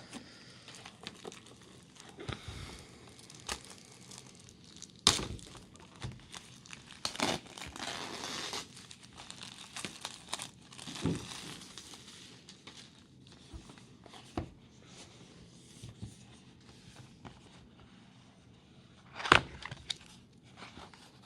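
Box packaging being opened by hand: crinkling and tearing with scattered clicks and knocks. A sharp knock comes about five seconds in and a louder one near the end.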